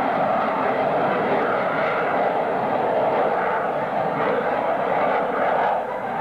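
F-117A Nighthawk's twin General Electric F404 turbofan engines, a loud, steady jet rush as the stealth fighter flies a pass.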